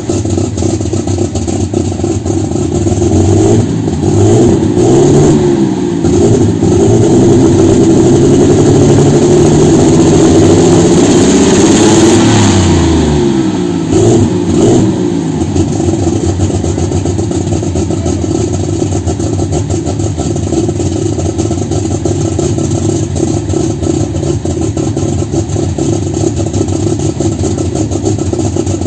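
John Deere competition pulling tractor's engine idling through its twin vertical stacks, then revved in several blips about three seconds in and held at high revs for about five seconds. The revs drop back near the middle, one more short blip follows, and it settles into a steady idle.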